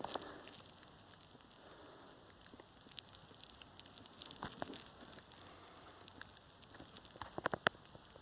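Faint outdoor ambience: insects droning steadily at a high pitch, with scattered small ticks and rustles. A louder, higher insect buzz comes in near the end.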